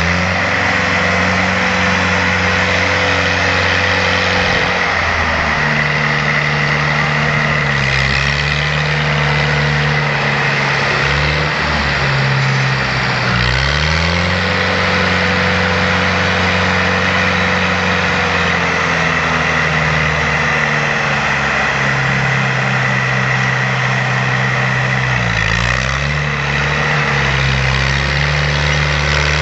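Fiat 315 tractor's diesel engine running under load, pulling a subsoiler about 50 cm deep in the soil. The steady engine note dips in pitch a few times, most clearly about 13 and 25 seconds in, and climbs back each time.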